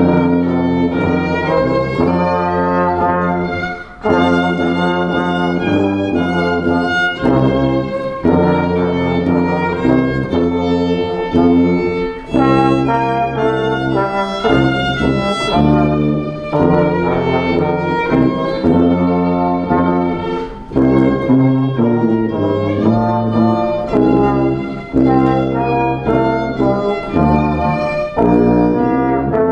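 Small live ensemble of violin, sousaphone and trombone playing a tune together. The violin carries the melody over the brass, and the sousaphone holds low sustained bass notes.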